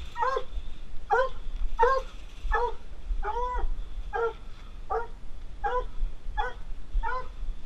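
A coonhound whining in short, repeated yelps, about one every three-quarters of a second, each call rising and falling in pitch: an excited dog at feeding time.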